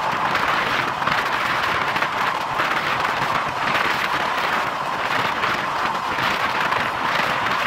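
Passenger train running at speed: a steady rush of wheel-and-rail noise and wind along the coaches, with slight surges every second or so.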